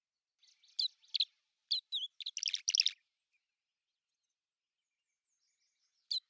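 A small bird singing: a quick phrase of high chirps and whistled notes that lasts about two and a half seconds, then a pause, then another short burst of notes near the end.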